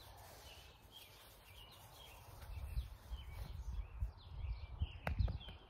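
Small birds chirping in short calls again and again, with wind buffeting the microphone in low rumbles through the second half and two sharp clicks a little before the end.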